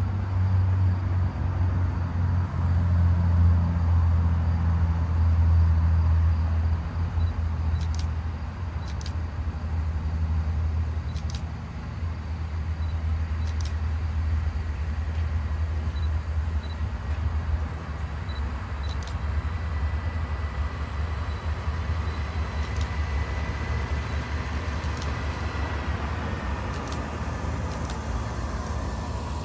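Sperry rail-detection hi-rail truck approaching along the track, with a steady low engine rumble that is heaviest in the first several seconds. A few sharp clicks sound in the first half, and a thin steady whine comes in later as the truck draws near.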